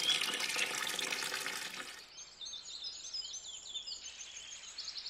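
A rush of water, like water poured or sprayed, for about two seconds. It gives way to birds twittering: many quick, high chirps.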